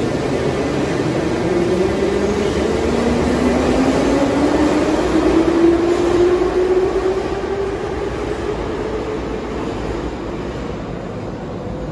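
81-718/719 metro train with thyristor-pulse traction control, giving its characteristic electronic whine that glides up in pitch over several seconds above the running rumble. It is loudest about halfway through, then fades.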